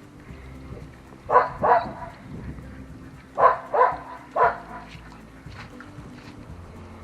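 A dog barking: two barks, then a pause, then three more barks.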